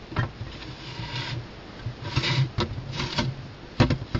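Wood-chip bedding rustling and scraping in short irregular bursts, with a few sharp clicks, as an albino California kingsnake's body shifts and pushes through the chips.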